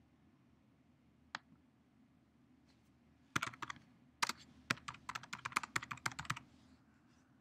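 Typing on a computer keyboard: one lone click about a second in, then a quick run of keystrokes lasting about three seconds.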